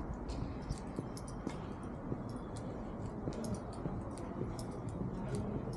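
Footsteps on a paved path: faint, sharp clicks about twice a second over a low steady rumble.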